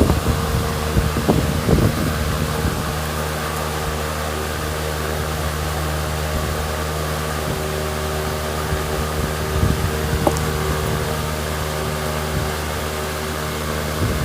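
A steady mechanical hum from a running motor: a low, even drone with a few faint knocks in the first two seconds and again around ten seconds in.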